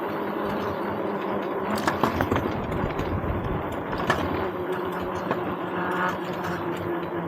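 Engine of the ridden vehicle running at a steady cruising speed, with road and wind noise.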